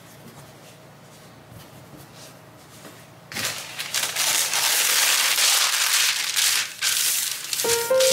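Baking paper crinkling loudly as a sheet is pulled out and spread flat by hand. It starts suddenly about three seconds in, and music comes in near the end.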